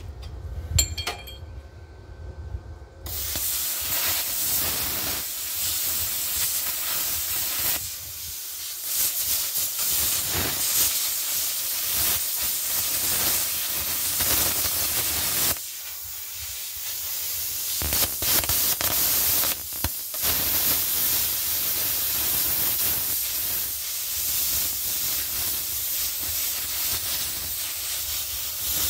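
Handheld plasma cutter torch cutting through metal: a loud, steady hiss of the arc and air jet that starts about three seconds in and dips for a couple of seconds about halfway through.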